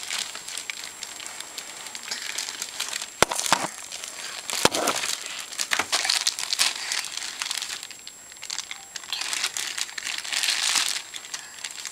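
Plastic diaper packaging crinkling and rustling in irregular handfuls as a toddler pulls at it and handles it, with two sharp clicks in the middle.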